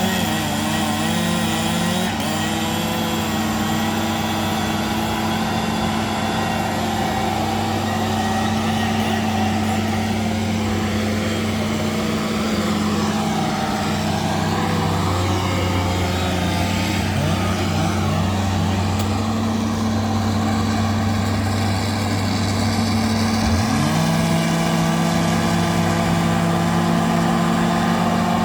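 Bulldozer diesel engine running steadily under load, then revving up to a higher pitch about five seconds before the end and holding there.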